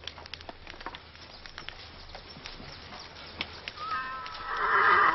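A horse whinnying about four seconds in, a pitched call that swells and then stops, over scattered small clicks and knocks.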